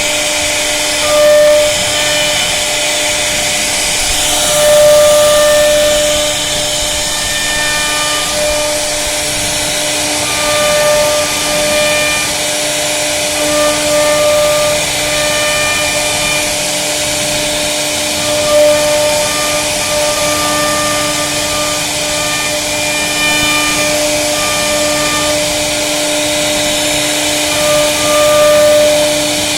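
CNC router spindle running with a steady whine while it cuts, its higher tones coming and going over a constant hiss as the cut goes on.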